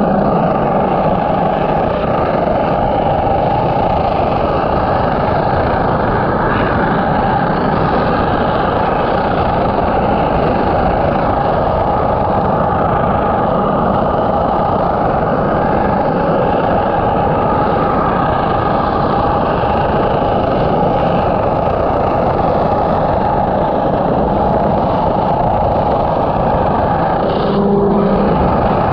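High-pressure washer jet spraying underwater against a boat's hull fittings, heard through the water as a loud, steady rushing noise.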